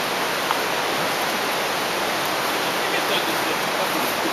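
Steady rush of a river, an even wash of water noise, with a single small click about half a second in.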